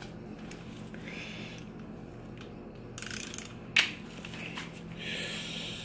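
Click-type torque wrench ratcheting as it tightens the main bearing cap bolts on a Honda B18B1 engine block, in short rasping strokes. There is one sharp click about four seconds in.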